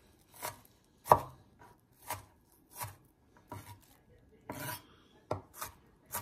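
Chef's knife chopping red onion on a wooden cutting board: single, uneven strokes about one a second, coming quicker near the end.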